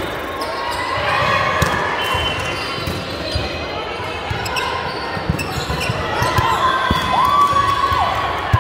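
Volleyballs being struck and bouncing on a hardwood sports-hall floor, heard as scattered short thuds in a reverberant hall, with voices in the background. Rubber-soled shoes squeak on the court near the end.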